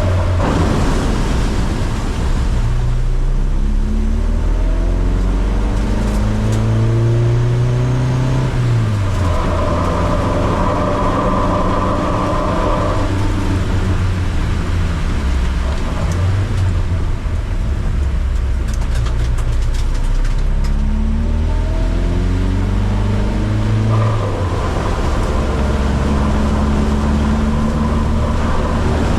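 Car engine under hard acceleration, its pitch climbing through the revs twice, with steadier running between the climbs.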